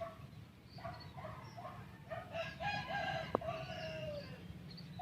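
Rooster crowing: a few short calls, then one long drawn-out crow that falls in pitch at its end. A single sharp click sounds partway through the long crow.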